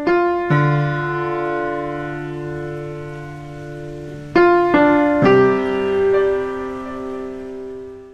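Background piano music: slow, sustained chords struck a few times, with new chords about half a second in and again around four and a half to five seconds in, then fading out near the end.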